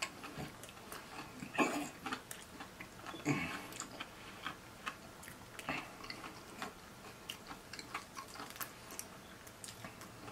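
Close-miked eating sounds: crispy fried chicken breast being pulled apart by hand and chewed, with many small sharp mouth and finger clicks and two louder crackling tears, one about one and a half seconds in and one about three seconds in.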